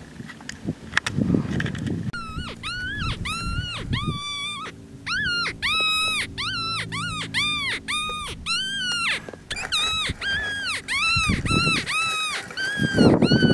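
Predator call sounding a rapid series of high, whining yelps like a distressed canine, about two a second, starting about two seconds in and running on with a couple of short breaks, to lure coyotes in.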